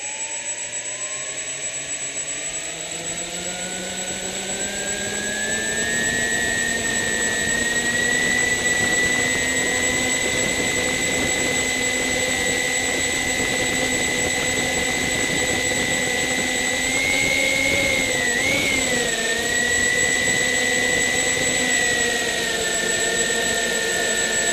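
Small multirotor drone's electric motors and propellers whining as they spin up on the ground. The whine rises in pitch over the first several seconds, then holds steady, with a brief wobble in pitch about 18 seconds in and a slight drop near the end.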